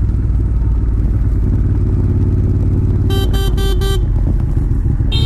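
Motorcycle engine running steadily under way. About three seconds in, a horn beeps four quick short times, and one more short horn blast sounds at the very end.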